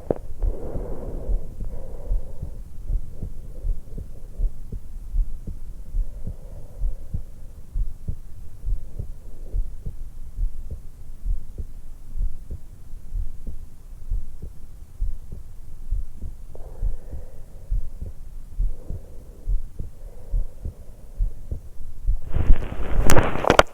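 Heartbeat picked up through a stethoscope microphone held against the hollow of the throat: a resting heart just after waking, beating steadily, with breaths heard as soft whooshes now and then. A burst of loud noise in the last second and a half.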